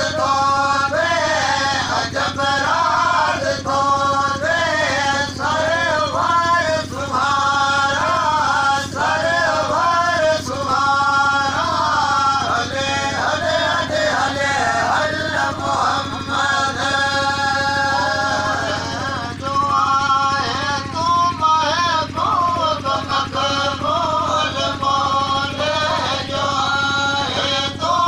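Male voice singing a chant-like song with a wavering, ornamented melody, going on without a break.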